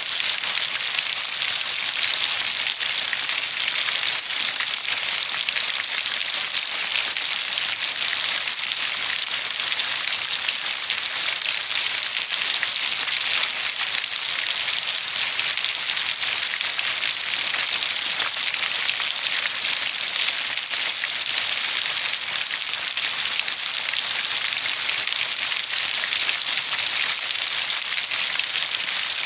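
Steady rain falling, a dense even hiss of many small drop impacts with no let-up or change in strength.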